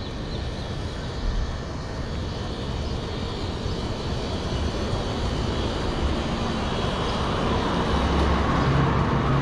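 City street traffic: a steady wash of motor vehicle noise that grows gradually louder, with a low engine hum coming in near the end.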